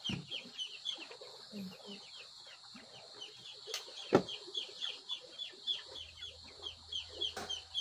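A bird chirping over and over, short falling chirps at about four to five a second, against a steady high hiss. Two sharp clicks come about four seconds in, the second the loudest sound.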